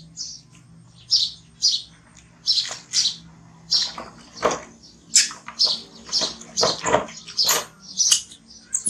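Baby macaque squealing: short, high-pitched cries about two a second, louder and more frequent after about four seconds, while it is dipped in a plastic basin of water, with some splashing.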